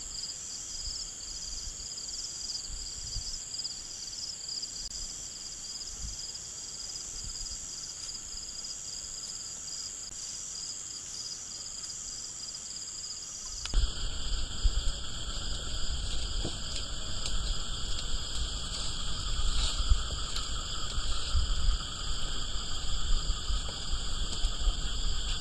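Night chorus of crickets and other insects, a steady high-pitched trilling with a fast pulse. About 14 seconds in, the sound steps up suddenly, adding a louder low noise beneath the insect chorus.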